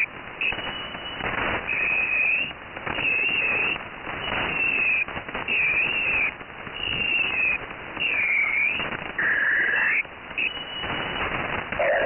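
Shortwave radio in lower sideband carrying a Brazilian 'peskie' station's waterfall-image transmission: gliding, wavering whistles high in the audio band trace the picture's curves, alternating with bursts of hiss, over band noise.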